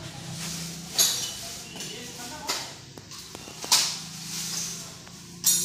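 Sharp metallic jingling strikes, four of them roughly a second or so apart, each ringing briefly and fading, over a faint low hum.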